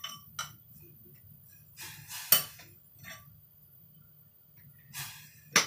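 Scattered light clinks of tableware, dishes and utensils knocking together, with a sharp one about two seconds in and another near the end and softer clatter in between.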